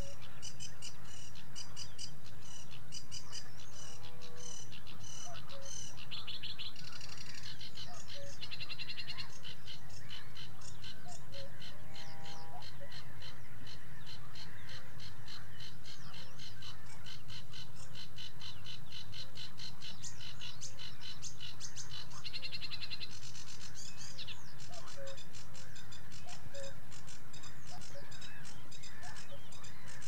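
Sedge warbler singing a long, fast, chattering song of harsh repeated notes, breaking into denser buzzy trills about seven seconds in and again a little past twenty seconds.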